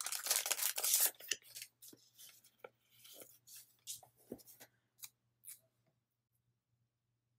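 Paper and plastic rustling for about a second as a sticker sheet is handled, then scattered light ticks and taps as a small sticker is picked and peeled from its backing, dying away after about five seconds.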